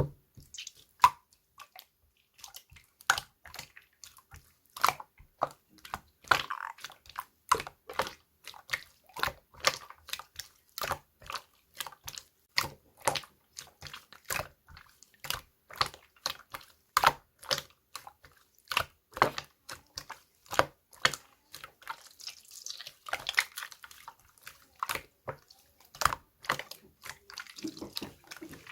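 Slime being squished and pressed by hand, making irregular wet clicks and pops, two or three a second.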